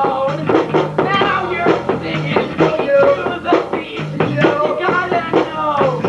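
Hip-hop backing track with a steady drum beat and a repeating bass line, with a voice rapping over it.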